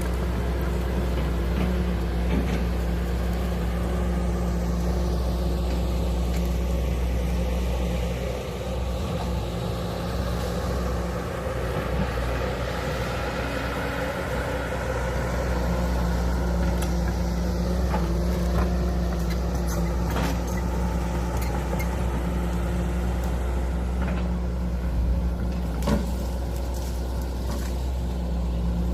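Hydraulic excavator's diesel engine running steadily under load, with a whine that rises and falls through the middle as the hydraulics work. A few sharp knocks come in the later part.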